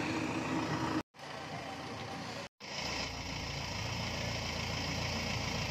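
Steady low rumble of idling vehicle engines, broken twice by brief dead-silent gaps.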